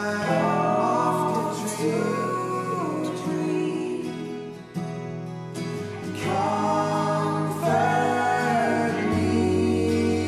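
Music: a song with two phrases of long, held sung notes over sustained chords.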